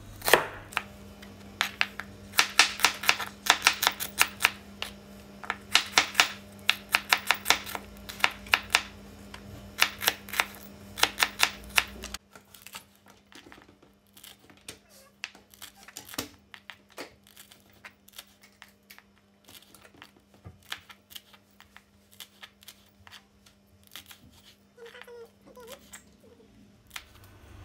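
Knife slicing shallots, garlic and red chilies on a plastic cutting board: quick runs of sharp taps as the blade strikes the board. The taps are loud for the first twelve seconds or so, then turn fainter and sparser.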